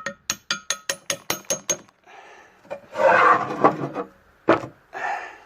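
A small brass hammer tapping on a steel pin to knock it out, about ten quick ringing metal taps at roughly five a second, followed about three seconds in by a rough scraping rub and one more sharp tap near the end.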